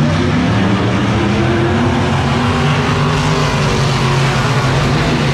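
A pack of dirt-track stock cars racing around the oval, several engines running together at a steady, loud level as the field goes by.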